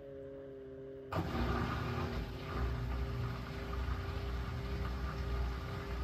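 Washing machine running with a steady motor hum, joined about a second in by a sudden, louder rush and low rumble that carries on steadily.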